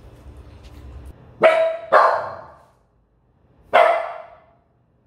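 Japanese Spitz barking: two sharp barks in quick succession about a second and a half in, then one more a couple of seconds later, each trailing off briefly.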